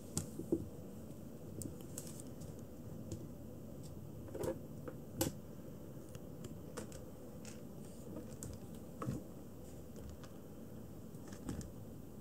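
Irregular light clicks and scratches of a kitten's paws and claws on a plastic tub and loose granules, with a few sharper taps about half a second, four and a half, five and nine seconds in.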